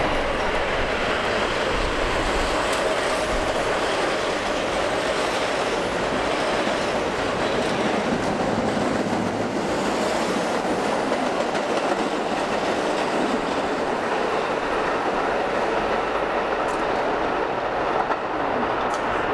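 New York City subway train running on track at a steady level, a continuous noise of wheels on rail with no pauses or stops.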